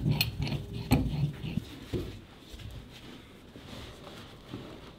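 Steel pipe wrench clinking and knocking against an engine raw-water seacock valve as it is set on the fitting and pulled, with a couple of sharp knocks in the first second or so and then fainter handling noise.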